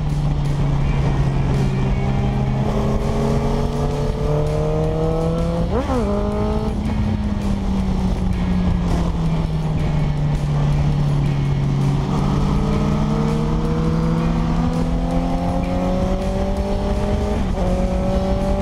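Motorcycle engine heard from a tank-mounted camera while riding, with wind rushing over the microphone. The engine note rises and falls with the throttle and jumps in pitch several times as gears change, with a quick rev about six seconds in.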